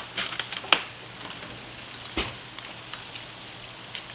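Onions sautéing in a pan with a steady frying hiss, and a few sharp clicks of a metal spoon against a ceramic bowl as a sauce of fish sauce, sugar and ginger is stirred.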